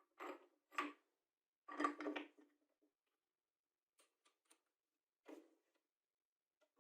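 Handwork noises: three short scraping or rubbing strokes in the first couple of seconds, the third the loudest, then a few light clicks and one more brief stroke, with dead silence between.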